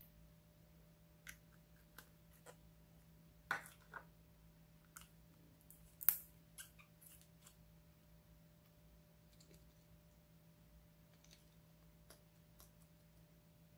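Scattered small plastic clicks and taps from toy nail-polish bottles and their brush caps being handled. The two sharpest come about three and a half and six seconds in, over a faint steady hum.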